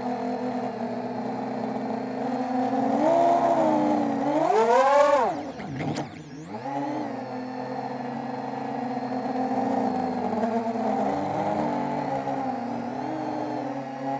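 FPV quadcopter's brushless motors whirring at steady throttle. About four seconds in the whine rises in pitch and gets louder as the throttle is punched, then falls away sharply and dips quieter before settling back to a steady hum.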